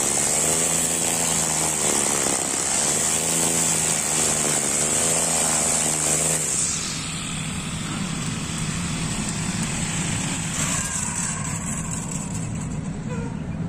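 Honda backpack four-stroke brush cutter spinning a nylon trimmer line at high throttle, its engine pitch wavering as the line cuts grass. About six and a half seconds in the throttle is released and the engine drops to a lower, steadier idle.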